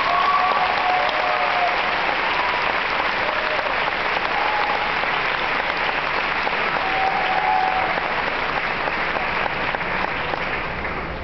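Audience applauding steadily, with a few brief high calls over the clapping, easing off slightly near the end.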